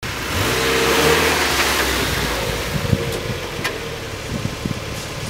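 A Mazda MX5's four-cylinder engine as the car drives in and pulls up, tyres rolling on asphalt. The engine note is loudest about a second in and eases off as the car slows to a stop.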